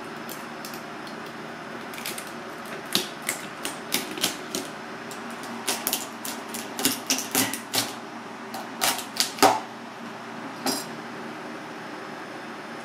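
Irregular sharp clicks and taps of a kitchen knife working a cooked mud crab on a plastic cutting board, cracking and prising the shell and scraping the meat toward a steel bowl. The taps come in quick clusters for most of the stretch and stop near the end, over a steady kitchen hum.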